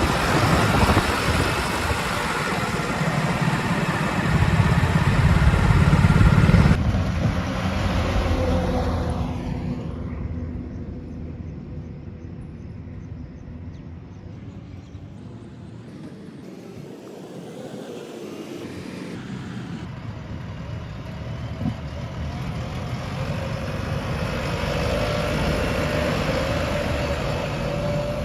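Diesel engine of a JCB 3DX backhoe loader running as the machine drives. It is loud at first, grows quieter towards the middle, then comes up again near the end.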